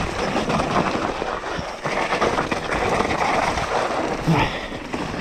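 Mountain bike riding down a rough trail: wind rushing over the head-mounted camera's microphone, with tyre noise and a constant clatter of the bike over the ground.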